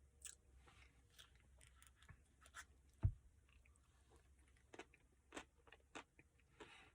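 A person chewing a chocolate brownie Blizzard close to the microphone: scattered soft mouth clicks and light crunches, with one low thump about three seconds in.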